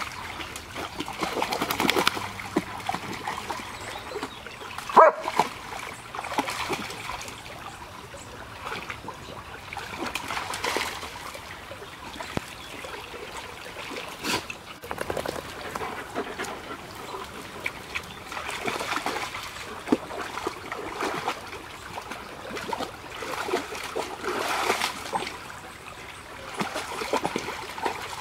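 Two dogs splashing and wading through a shallow stony stream, with water trickling and splattering around their legs. Occasional dog play sounds are mixed in, the loudest a short, sharp one about five seconds in.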